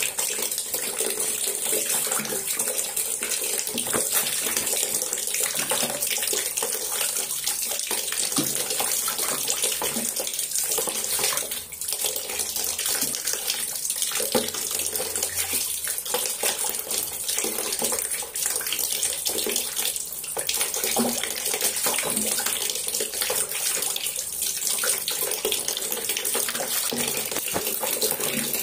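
Water running steadily into a plastic tub, with small splashes from a white domestic duck bathing and dipping its bill in it.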